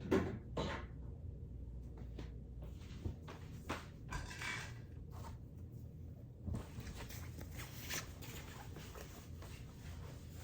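Household items being handled and put away: a knock right at the start, then scattered small clicks and knocks and a short rustle about four seconds in.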